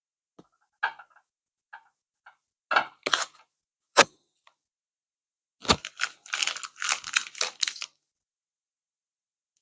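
Kitchen handling sounds while piping almond biscuit dough from a plastic piping bag onto a tray lined with baking paper: a few scattered light taps and clicks, then a couple of seconds of crinkling rustle near the end.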